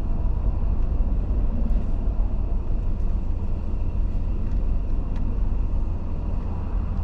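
Steady low rumble of a car's engine and tyres on the road, heard inside the cabin while driving.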